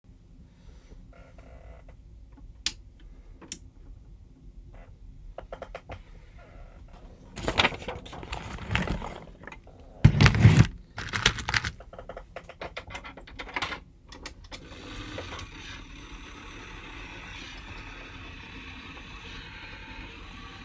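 Mini claw machine: scattered clicks and several loud rattling, knocking bursts, then from about 15 seconds in a steady whirr as its motor runs and the claw moves.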